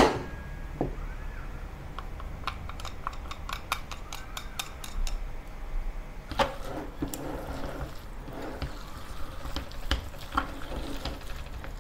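Chopsticks clicking and scraping against glass bowls as chopped mushrooms and chives are pushed in, a quick run of light taps in the first half. Then chopsticks stirring and squishing the minced chicken dumpling filling in a glass bowl.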